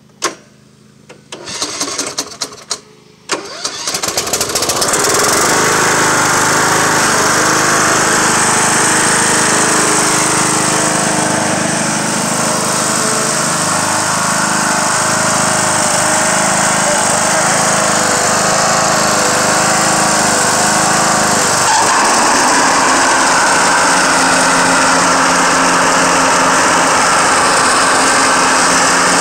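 Cub Cadet LTX1045 riding mower engine being cranked, catching about four seconds in, then running steadily while the mower drives. Through the engine there is a wavering scraping that the owner calls metal rubbing against metal, a sign of the mower deck riding low on one side. The running note shifts about two-thirds of the way through.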